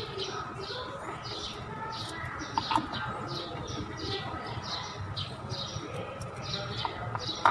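Small bird chirping over and over, about two short falling chirps a second, over a steady low hum, with a couple of light clicks about halfway through.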